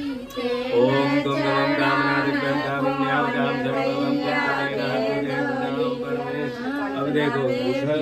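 Ritual chanting: voices singing a slow, drawn-out melody over a steady held low tone.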